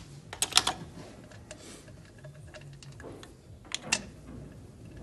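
Light metal clicks and taps as a compression tester's gauge and hose adapter are handled and fitted into a spark plug hole on the cylinder head: a quick cluster of clicks about half a second in, and two more near the end.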